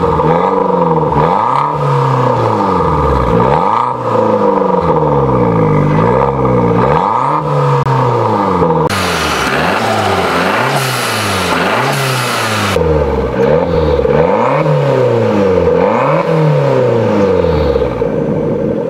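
Tuned Abarth 500's 1.4-litre turbocharged four-cylinder engine being blipped while stationary, a dozen or so short rises and falls in revs one after another. For a few seconds in the middle a loud hissing rush sits over the engine note.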